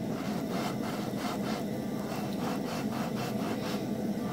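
Toasted burger bun halves being pressed and rubbed around a hot non-stick frying pan in melted margarine. Each stroke gives a short rasping scrape, about three a second, over a steady background noise.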